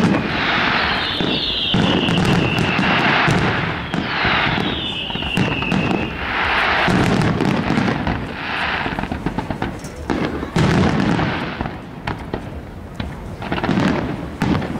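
Fireworks display: aerial shells bursting in repeated bangs, with two long whistles that fall in pitch in the first six seconds and a dense spell of crackling near the end.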